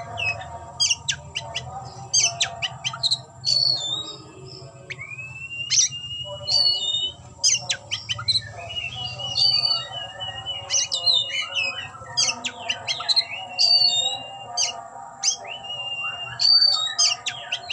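Oriental magpie-robin (kacer) singing a varied song of sharp whistles, chirps and quick pitch sweeps, with a long held whistle about five seconds in and a wavering whistle about eight to eleven seconds in.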